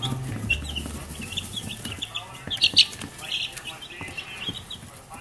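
Two-week-old English Black Mottled Orpington chicks peeping: a scatter of short, high chirps, loudest near the middle. Background music fades out in the first second.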